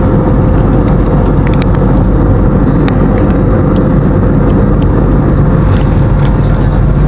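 Jet airliner cabin noise in flight: a loud, steady rumble of engines and airflow, with a steady hum running through it.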